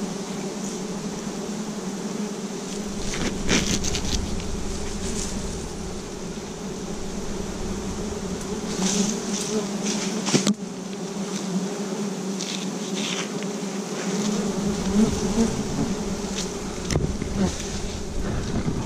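Wild honeybees swarming over their exposed comb as it is cut away: a steady low hum of many wings from a disturbed colony. A few brief rustles come about three and a half seconds in and again around nine to ten seconds.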